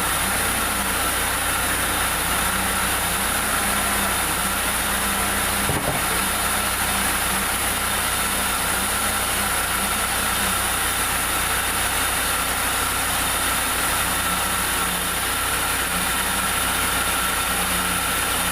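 Sawmill machinery running steadily, an even engine hum with a thin, steady high whine. A single short knock comes about six seconds in.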